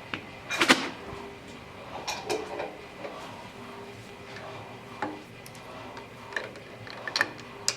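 Scattered light clicks and knocks of tools and a metal workpiece being handled at a milling machine, over a faint steady hum.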